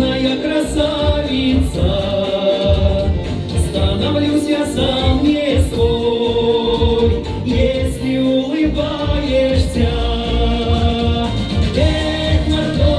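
A man singing a song into a microphone over backing music with a steady beat.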